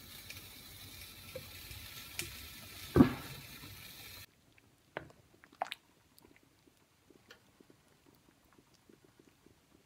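A steady hiss from a pot of water with pumpkin and sweet potato heating on the stove, with one loud knock about three seconds in; the hiss stops abruptly a little later. Then come a few soft, wet clicks and squelches of a wooden spatula stirring the thick pumpkin and sweet potato sweet soup.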